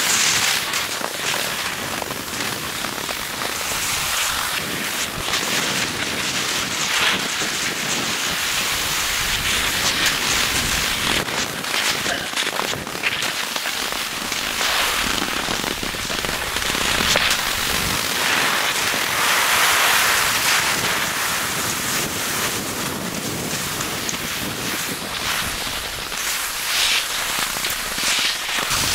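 Cross-country skis sliding and scraping over firm, frost-hardened spring snow: a steady high hiss with scattered small ticks that swells and fades.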